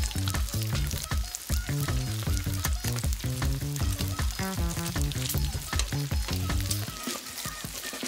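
Pork belly slices sizzling and crackling on a hot iron griddle, with a background music track playing over it.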